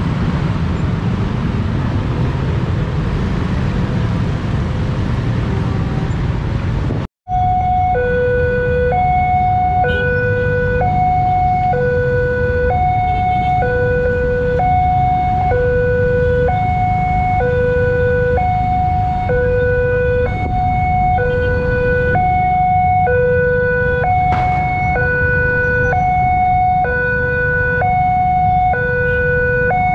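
Road traffic, mostly motorcycles, passing a railway level crossing. After a cut about seven seconds in, the crossing's loudspeaker alarm sounds a steady two-tone hi-lo warning, like an ambulance siren, switching between a high and a low tone about once a second. It warns that a train is approaching while the barrier comes down, and traffic noise continues underneath.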